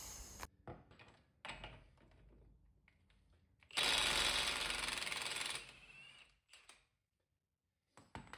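Cordless impact wrench running for about two seconds, spinning the 32 mm CV axle nut off the front hub. A few light knocks and clicks of tool handling come before and after.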